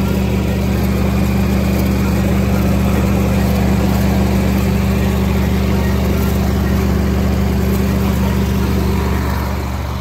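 Combine harvester's engine running at a steady speed close by, a constant low hum that gets a little quieter near the end.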